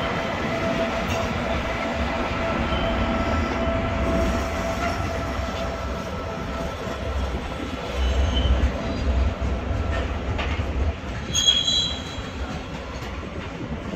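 Train running on the rails with a low rumble and a steady whine that fades out about halfway through. Brief high-pitched wheel squeals come in the second half, the loudest near the end.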